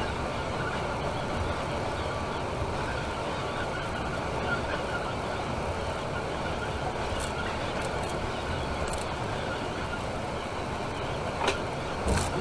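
Steady engine and road noise inside a Temsa Maraton coach cruising on a motorway. Two short sharp clicks come near the end, about a second apart.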